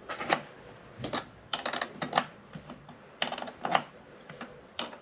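Irregular sharp clicks, at times several in quick succession, from a hand tool tightening a car battery's negative terminal clamp.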